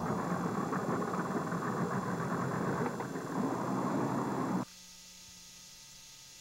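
A loud, steady rushing noise that cuts off suddenly about four and a half seconds in, leaving a faint steady electrical hum from the tape.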